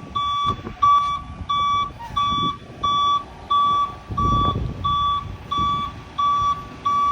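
Concrete mixer truck's reversing alarm beeping steadily, about one and a half beeps a second, as the truck backs into position for the pour. A low rumble of the truck swells briefly about four seconds in.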